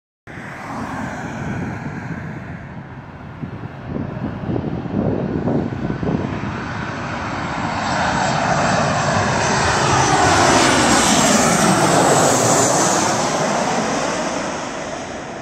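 Twin-engine jet airliner passing low on landing approach: its engine roar builds from about seven seconds in, is loudest around ten to twelve seconds with a sweeping whoosh as it goes over, then fades.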